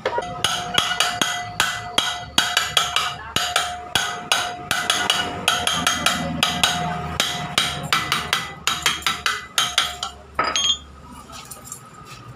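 Hammer striking a metal drift set in the aluminium crankcase half of a Lifan 110 motorcycle engine, tapping a part into place: a run of quick metallic blows, about three a second, with a ringing tone. The blows stop about ten seconds in.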